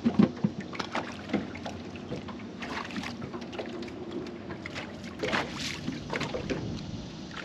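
Scattered knocks and clicks of handling on a small fishing boat, over a faint steady hum and light wind on the microphone, with a short cluster of louder clicks about five and a half seconds in.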